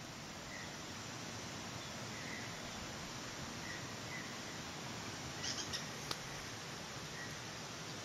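Tropical rainforest ambience: a steady hiss of forest background with a faint short chirp repeating about once a second. A quick cluster of sharp, higher chirps comes a little past the middle.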